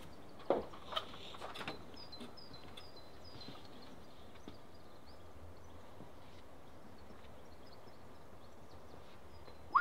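Quiet outdoor background with small birds chirping faintly now and then, with a couple of soft knocks in the first two seconds and a short sharp sound right at the end.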